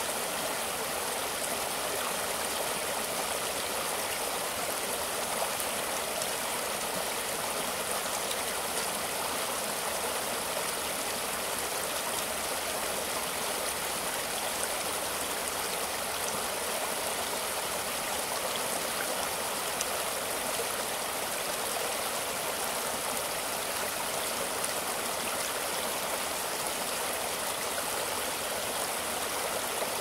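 Shallow rocky stream rushing and splashing over stones and a fallen log in a steady, unbroken hiss of white water.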